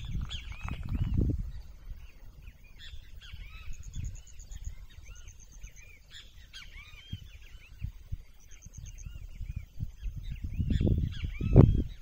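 Several wild birds calling and singing at once in dry scrub: many short, arching chirps throughout, with a fast, high pulsed trill recurring several times. A low rumble on the microphone swells near the start and again near the end, where it is loudest.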